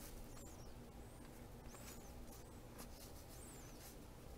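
Near silence: faint clicks and rustle of cardboard baseball cards being shuffled in the hands, with a few faint high chirps.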